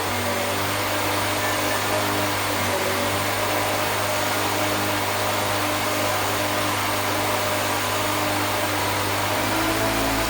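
Steady whirring of an electric motor-driven machine, running at a constant speed with a low hum under an even hiss.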